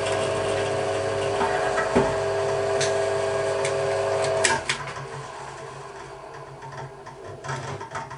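Bench drill press motor running with a steady hum and whine while drilling. About four and a half seconds in it is switched off with a click and the tone stops, leaving a fainter run-down. Near the end a rag rubs and knocks on the drill table as swarf is wiped off.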